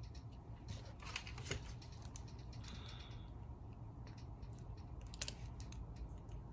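Fingernails picking and pulling at a plastic safety seal on a skincare product: faint, irregular small clicks and crinkles, with a brief scraping rustle about three seconds in.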